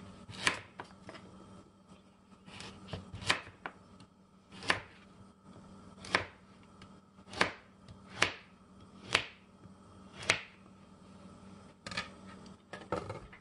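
Kitchen knife slicing a carrot into chunks on a plastic cutting board: a dozen or so sharp knocks of the blade striking the board, slow and unevenly spaced, with a few lighter clicks near the end.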